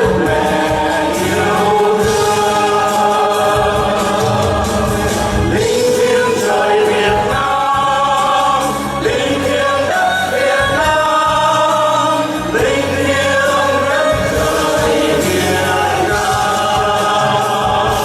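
A song sung by several voices over an instrumental backing, with long held notes that change pitch every second or two.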